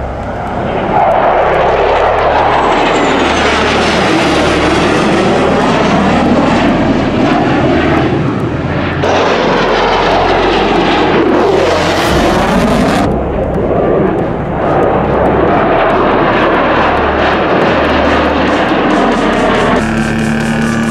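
F-16 fighter jets of the Thunderbirds demonstration team flying past, a loud jet roar with sweeping, phasing swirls as they pass. The roar breaks off and resumes twice, and a few steady musical tones come in near the end.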